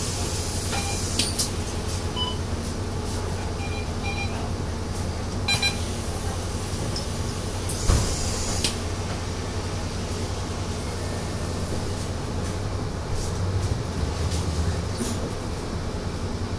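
Interior of a Mercedes-Benz Citaro city bus standing at a stop, its engine idling with a steady low hum. A few short electronic beeps come from the fare card readers in the first several seconds, and there is a single knock about eight seconds in. The engine note rises near the end as the bus pulls away.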